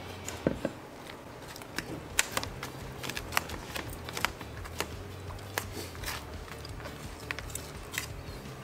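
Metal forks clinking and scraping against metal serving trays of chili cheese fries in quick, irregular clicks, over a low steady hum.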